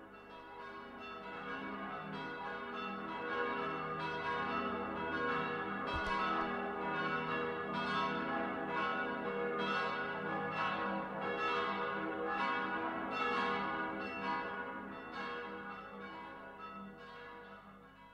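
Several church bells pealing together, their strikes overlapping in a steady rolling rhythm. The peal fades in over the first few seconds and fades out near the end.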